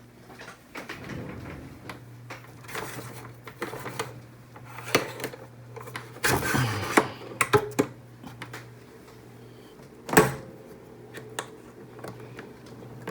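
Clicks, knocks and rattles from a restored 1953 RCA Victor 3-BX-671 portable tube radio being handled, over a steady low hum. The loudest knock comes about ten seconds in, after which the hum fades.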